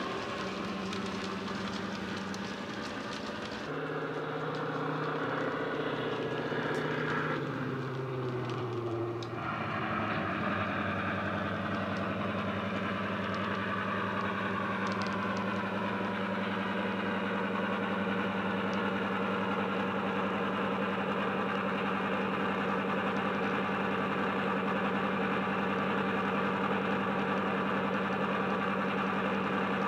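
A model locomotive's DCC sound decoder plays a Napier Deltic diesel engine recording through a small speaker, with a deep bass rumble. About four seconds in, a hiss stops and the engine note falls over several seconds. From about ten seconds in, it holds a steady low running note, like an engine ticking over.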